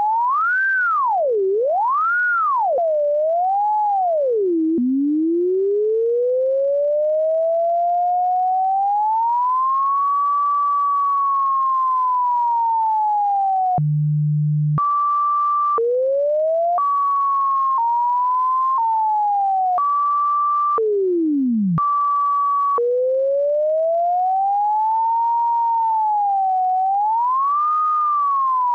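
A single pure, computer-generated sine tone gliding in pitch as it traces plotted function curves. It opens with quick wobbles, then rises slowly and smoothly and sags a little. About halfway there is a brief low tone, then a run of abrupt pitch jumps and short breaks, and the last part rises slowly again with a wiggle near the end.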